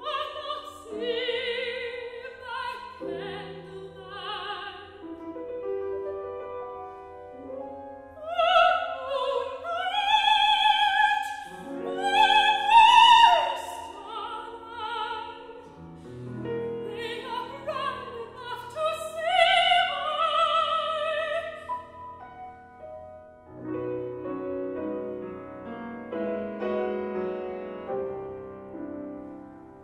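Operatic soprano singing with wide vibrato, accompanied by grand piano. The voice climbs to its loudest high notes about halfway through, then stops a little past two-thirds of the way, leaving the piano playing alone.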